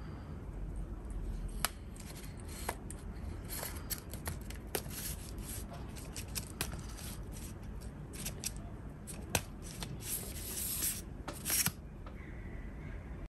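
Twist ring locks on a Sirui Traveler 5CX carbon fibre tripod leg being loosened by hand and the leg sections slid out. There is a run of small clicks and rubbing, with longer scraping near the end.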